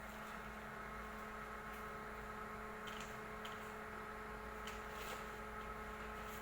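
Switched-on stick welding machine idling with a steady electrical hum, and a few faint light clicks.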